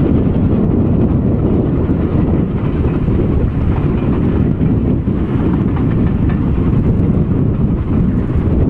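A distant steam train hauling coaches, heard under a steady low rumble of wind on the microphone.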